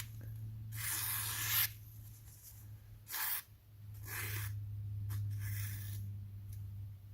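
Freshly sharpened Victorinox Fibrox chef's knife slicing through a sheet of paper in four strokes, each one a short papery hiss. The toothy 500-grit edge still cuts smoothly through the paper. A steady low hum lies underneath.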